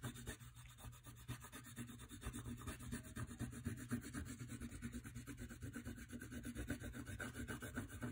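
Oil pastel rubbing across paper in quick back-and-forth shading strokes, several strokes a second, faint.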